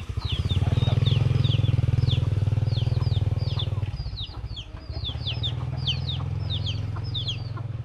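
Small motorcycle engine running close by, loudest for the first four seconds and then quieter as it moves off. Over it, chicks peep steadily in short, high, falling chirps.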